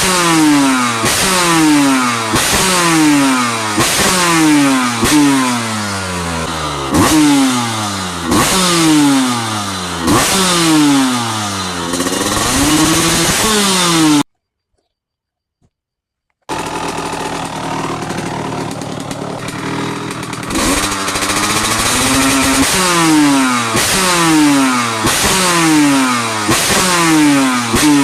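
Kawasaki KX125 two-stroke dirt bike engine with an FMF Fatty expansion chamber and Pro Circuit silencer, blipped over and over: quick throttle snaps that fall back about once a second. About halfway through it cuts to two seconds of silence, idles for a few seconds, then the blips start again; the two halves are the 304 and R304 silencer versions.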